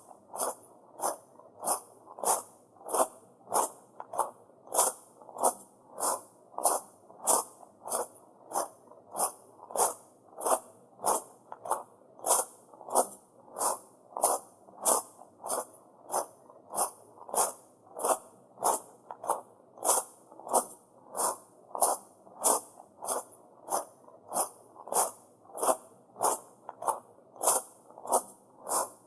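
Footsteps crunching on tamajari, the small rounded pebble gravel of a shrine path, at a steady walking pace of about one and a half steps a second.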